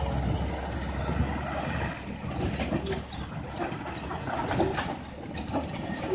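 Heavy three-axle box truck's diesel engine running low as the truck rounds a tight bend and passes close by; the rumble is strongest in the first two seconds, then eases. Scattered clicks and a few brief short tones follow in the second half.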